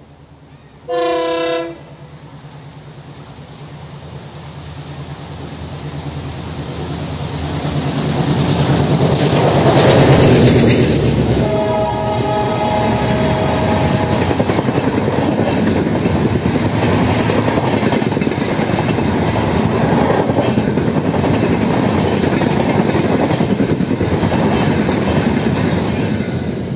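Gandhidham Humsafar Express passenger train passing at speed. A short loud horn blast comes about a second in. The train's rumble then builds to a peak near ten seconds as the locomotive goes by, with a fainter steady tone for a couple of seconds just after. The coaches follow with steady clickety-clack over the rail joints.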